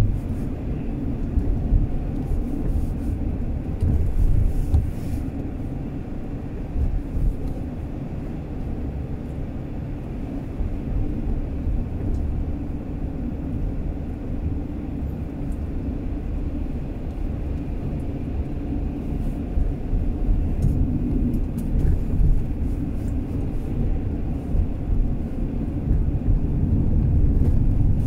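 Car on the move: a steady low rumble of engine and tyre noise on the road, growing a little louder near the end.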